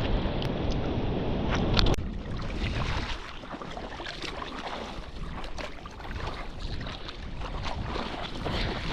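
Wind buffeting the microphone over surf, with water splashing and crackling close by. The low wind rumble drops away about two seconds in, leaving mostly the splashing.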